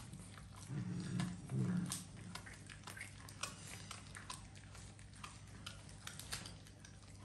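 Several cats chewing and tearing at a large piece of raw meat, with scattered sharp clicks of biting throughout. A louder low rumble comes between about one and two seconds in.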